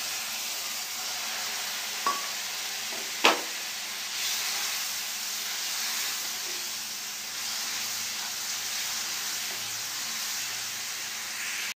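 Onion-and-spice masala in oil sizzling steadily in a nonstick frying pan, with two spoons of water just added, while a wooden spatula stirs it. Two sharp knocks of the spatula against the pan come about two and three seconds in, the second the louder.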